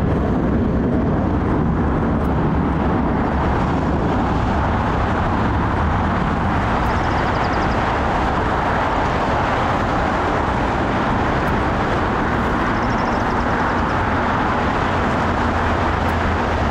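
Loud, steady engine rumble that holds the same level throughout, with no starts, stops or sharp sounds.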